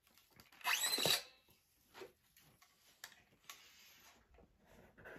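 An old steel guitar string being pulled out through a Strat-style guitar's bridge, a scraping zip of about half a second roughly a second in, followed by a few faint knocks from handling the guitar.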